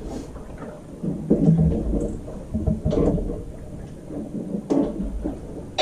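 Low rumble and a few scattered knocks inside a sailboat's cabin under way.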